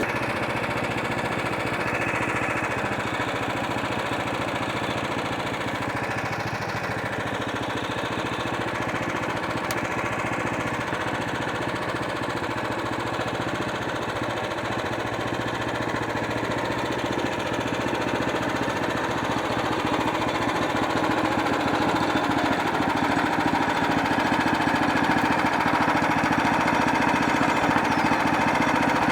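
Sawmill cutting slowly through a black walnut log, a steady mechanical noise that gets somewhat louder toward the end. The slow feed comes from the walnut being a hard wood.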